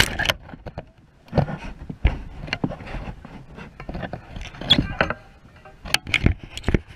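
Irregular knocks, bumps and scrapes of handling against a kayak, close to the microphone, as the rod is worked in the fight with a fish.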